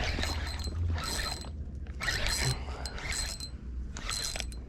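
Fishing reel working under load from a hooked jack, a mechanical whirring with a thin whine in three short spells, as the angler fights the heavy fish.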